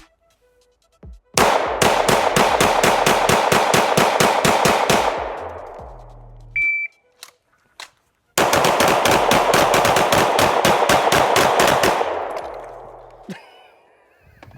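Two long strings of rapid pistol fire from a Glock 19 9mm, fast evenly spaced shots, with a short high electronic beep between the strings.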